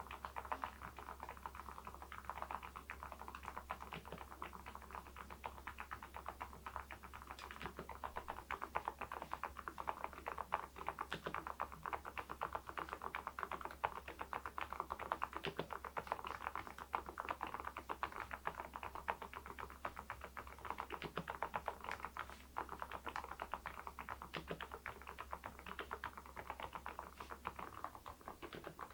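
Continuous fast typing on an Epomaker TH80 V2 Pro mechanical keyboard fitted with Kailh Deep Sea switches and ceramic keycaps: a dense, even stream of key clicks.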